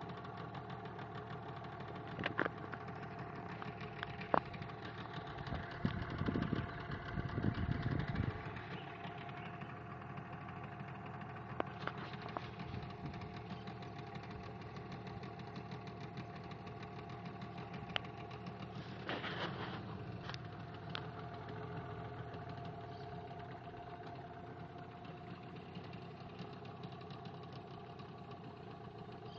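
Motorboat engine running steadily, a continuous drone as the wooden boat cruises along the river. A brief low rumble about a quarter of the way in, and a few sharp clicks.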